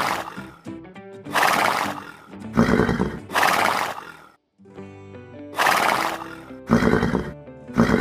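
An equid, a zebra or horse, whinnying loudly and repeatedly, about seven calls each roughly half a second long, over background music.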